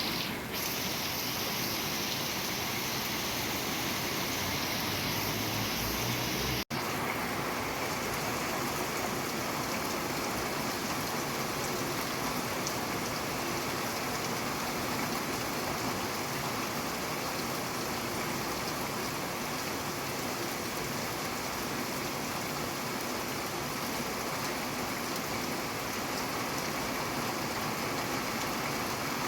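Steady rain falling, a dense, even hiss of drops. About a quarter of the way in the sound cuts out for an instant and comes back slightly less bright.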